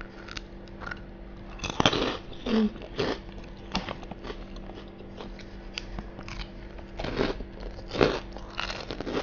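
Close-miked biting and chewing of crunchy fried food, with irregular sharp crunches. The loudest crunches come about two seconds in and again near the end.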